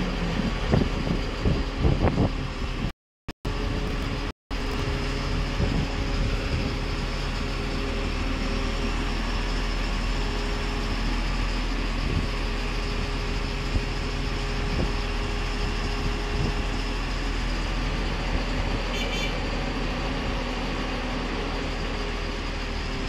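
Construction-site machinery running steadily, with a constant high whine over the drone and a few knocks in the first two or three seconds. The sound cuts out completely twice, briefly, about three and four and a half seconds in.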